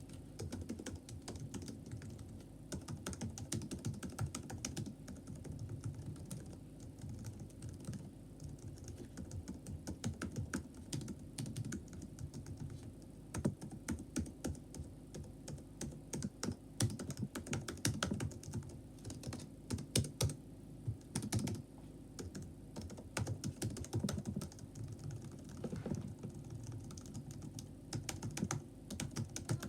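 Chromebook laptop keyboard being typed on: quick, irregular key clicks in steady runs, with short pauses between bursts.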